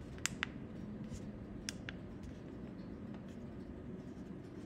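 Steady low hum of an oven running as it heats, with two pairs of light clicks in the first two seconds.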